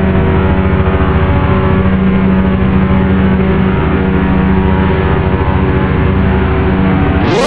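CN diesel freight locomotive approaching, its engine giving a loud, steady rumble with a fast throb. The sound changes abruptly near the end.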